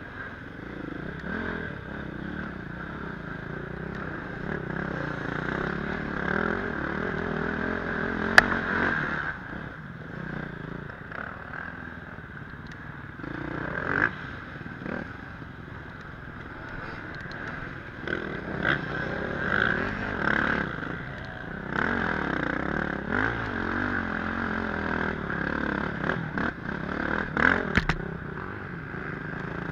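On-board sound of a KTM dirt bike's engine revving up and down under load on steep, rough climbs, with clattering and sharp knocks from the bike over the ground, the loudest knock about eight seconds in.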